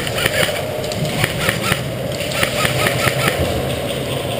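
Scattered sharp clicks and cracks of airsoft gunfire, at times several a second, over a steady low mechanical hum.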